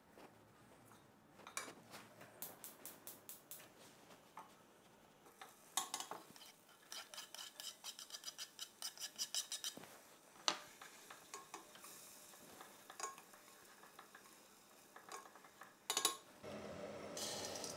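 Wooden chopsticks stirring and tapping against a stainless steel pot of melting butter and chopped onion, in quick runs of light clicks. Near the end a steady hiss comes in.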